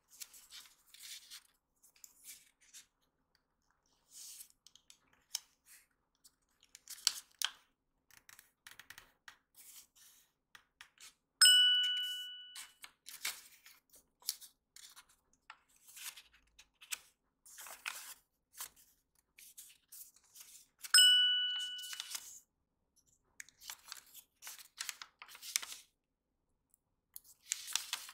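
Origami paper being folded and creased by hand: short, faint rustles and scrapes of paper and fingertips. Twice, about eleven and twenty-one seconds in, an identical chime rings loudly and fades over about a second.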